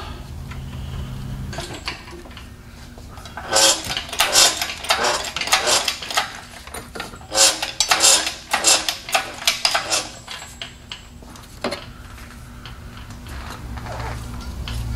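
Metal clinking and clattering in repeated bursts for several seconds while an engine hanging from a shop crane is worked into line with the transmission. A low steady hum runs underneath at the start and near the end.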